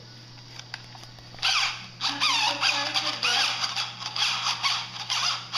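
Cheap cordless drill running in spurts, its high motor whine rising and falling in pitch; it starts suddenly about a second and a half in.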